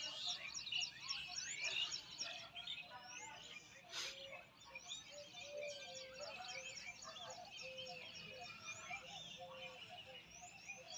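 Several birds chirping and calling together: quick, repeated high chirps over short, lower whistled notes, with a single sharp click about four seconds in.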